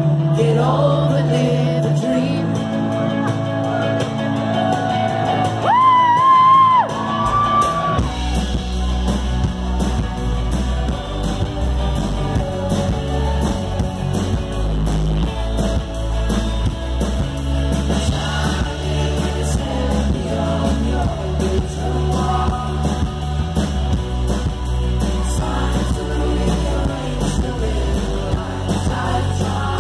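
Live rock band playing with singing: electric guitars and keyboard, with a loud held high note about six seconds in, after which bass and drums come in heavily and the full band plays on.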